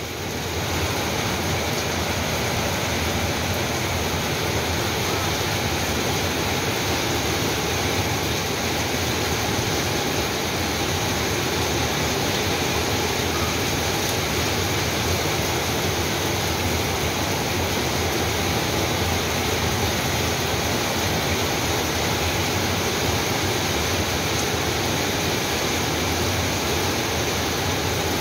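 Heavy rain pouring steadily, a constant even hiss that does not let up.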